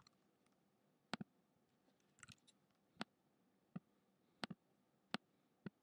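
Faint computer mouse clicks and keystrokes: about seven sharp clicks, two of them quick double clicks, with a short patter of typing about two seconds in.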